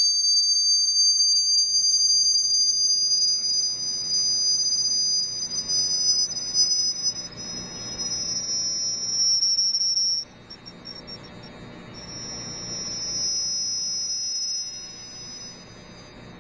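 Shrill, high-pitched tones from a sand-covered Chladni plate driven by a tone generator. Two steady tones drift slowly toward each other as the frequency is changed, stop abruptly about ten seconds in, then return more quietly for a few seconds.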